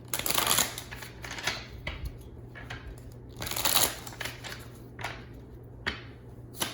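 Tarot cards being shuffled and handled, in a series of papery rustling bursts, the longest near the start and about halfway through.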